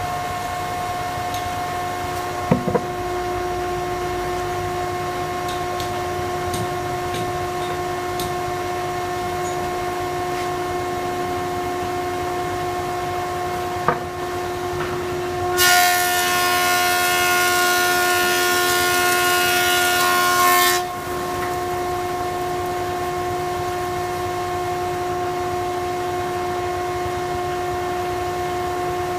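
Thicknesser planer running with a steady, pitched whine. About halfway through, a board goes through the cutter: a loud, harsh cutting noise lasts about five seconds before the machine runs free again. A couple of sharp clicks come before the cut.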